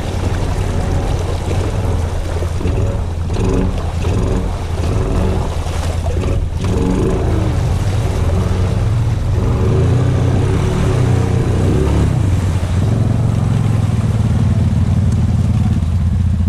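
A Honda 520 ATV's single-cylinder engine runs while the quad wades through a muddy creek, with water churning around it. In the last few seconds the engine settles into a steadier note.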